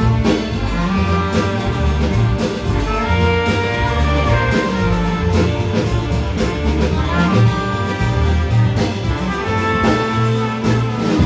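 Live jazz sextet playing: trumpet and bass clarinet over electric guitar, keyboard, double bass and drum kit, with a moving bass line and busy cymbals.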